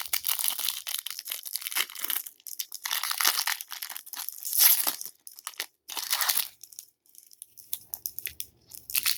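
Plastic trading-card packaging crinkling and tearing as cards are unwrapped, in irregular bursts of rustling. It goes quieter near the end, with one short burst just before it stops.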